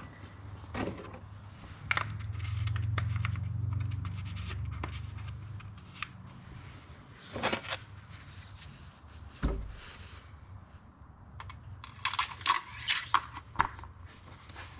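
Small clicks, knocks and scrapes of hands working under a car's hood: the plastic oil filler cap being refitted and the dipstick reached for, with a quick run of clicks near the end. A low rumble swells and fades in the first few seconds, and a dull thump comes about nine and a half seconds in.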